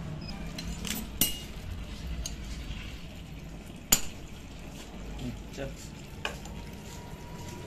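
Metal tools and engine parts clinking and knocking as a motorcycle engine is worked on by hand: a few separate sharp clicks, the loudest about four seconds in, over a low steady rumble.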